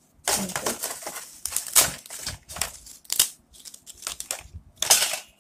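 Crisp fried papdi (wheat-flour crackers) crackling and crunching in irregular bursts as a hand picks through and presses them in a steel plate. The crackle is the sign that they are fried fully crispy.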